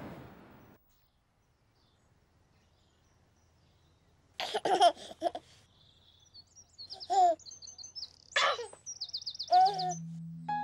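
A baby giggling in short bursts, about four seconds in and again several times, with birds chirping and trilling between the giggles.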